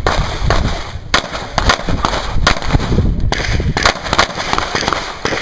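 A rapid, uneven string of 9mm shots, about a dozen, from a CZ 75 SP-01 Shadow pistol fired in an IPSC Production stage.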